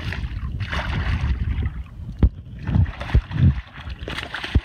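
A hooked red drum thrashing at the surface, splashing in bursts, at the start and again near the end, with a few sharp knocks. A low wind rumble on the microphone runs underneath.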